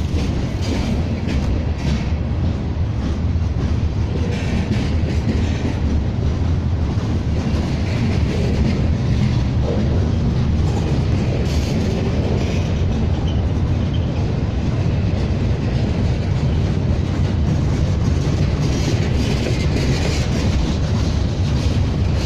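Freight train cars rolling past at trackside: a steady low rumble of steel wheels on the rails, with irregular clicking as the wheels pass over rail joints.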